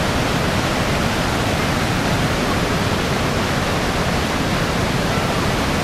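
Niagara Falls: a huge volume of water pouring over the falls, a steady, even rushing noise with no breaks.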